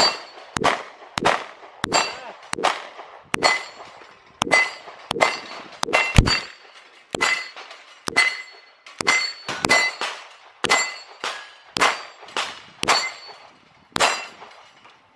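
Handgun shots fired in a steady string, about two a second, with struck steel target plates ringing after many of the shots.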